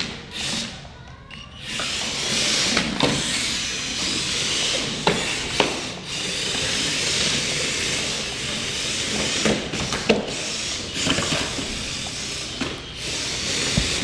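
Air Hogs Hyper Tracks remote-control tracked toy vehicles running across a hardwood floor: a steady whirring hiss from their motors and treads, with a few sharp knocks as they bump.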